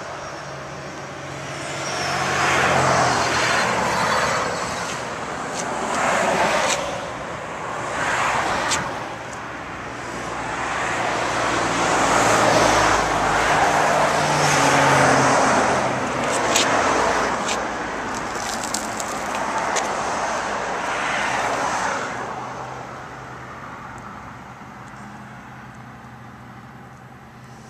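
Road traffic going by: several vehicles pass one after another, each rising and fading over a few seconds. A few short sharp clicks come in the middle, and the traffic dies down over the last few seconds.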